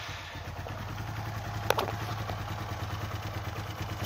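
Motorcycle engine idling steadily on a freshly serviced Tokaido carburettor, with one sharp click about two seconds in.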